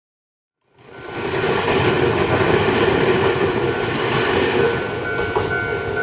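Ryutetsu Nagareyama Line electric train running close by, a steady rumble that fades in about a second in. A thin, steady high tone joins it in the second half.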